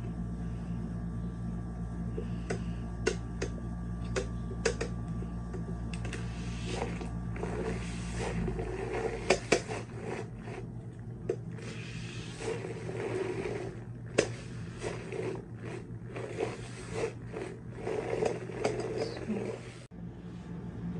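Electric makeup brush cleaner spinning a powder brush in its bowl of soapy water: a steady motor whirr for about the first eight seconds, then irregular swishing and a series of sharp plastic clicks as the brush spins and is handled in the device.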